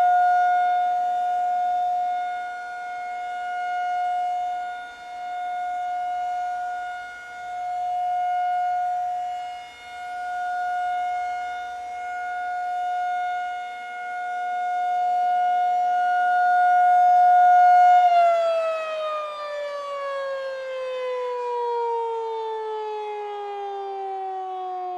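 Tornado warning siren holding one steady tone, swelling and fading in loudness every few seconds. Late on, its pitch starts falling steadily as it winds down.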